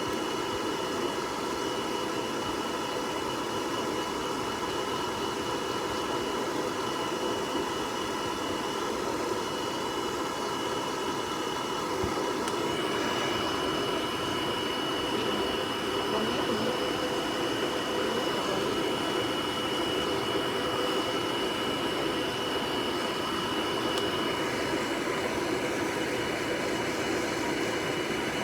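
Hair dryer blowing steadily, a rushing noise with a motor whine. The high whine grows stronger about halfway through and fades back near the end.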